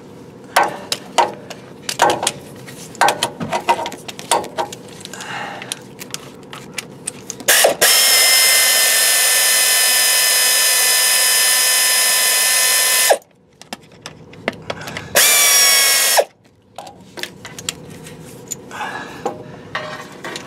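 Power ratchet backing out the 13 mm bolts of the front axle's four-wheel-drive actuator. For several seconds there are light clicks and knocks as the socket is fitted. Then the ratchet runs with a loud, steady high whine for about five seconds, stops sharply, and runs again briefly, rising slightly in pitch, a couple of seconds later.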